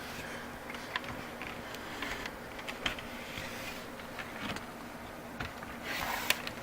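Faint handling noises: light scattered clicks and knocks of an opened desktop computer case being turned around, over a faint steady hum.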